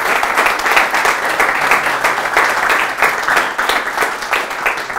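Audience applauding: many people clapping together in a dense, continuous patter.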